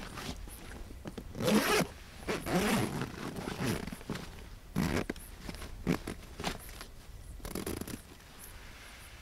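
A zipper pulled in a series of short strokes, the loudest about a second and a half in, with quieter pulls over the next several seconds.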